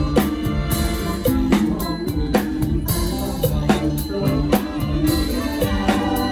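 Mor lam band playing an upbeat lam phloen groove. A drum kit keeps a steady, driving beat over bass and melody instruments.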